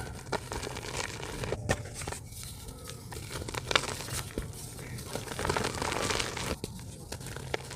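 Lumps of soft red dirt crumbling apart, a dry crackling of many small sharp clicks and crumbles. The crackling is densest and loudest a little past two-thirds of the way through.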